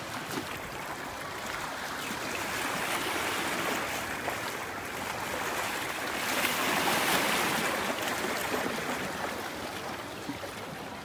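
Rubber boots splashing and sloshing through shallow seawater as several people wade. The swishing swells and is loudest about six to eight seconds in.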